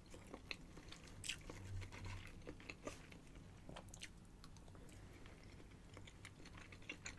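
Faint close-up mouth sounds of a person chewing soft pasta: scattered small wet clicks and smacks.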